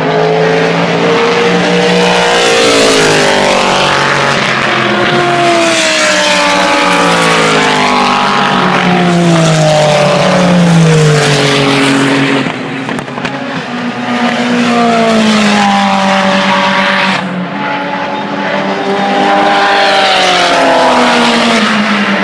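IMSA sports-prototype and GT race cars passing one after another, their engine notes overlapping and sweeping up and down in pitch as each car goes by, with two brief lulls between groups of cars.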